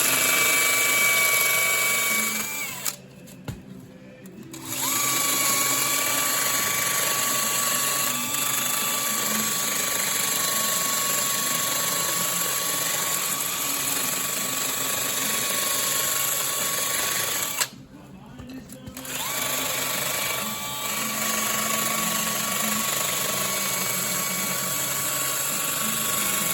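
A power tool motor running with a steady high whine over a hiss, cut off for a moment about three seconds in and again near the end of the second run.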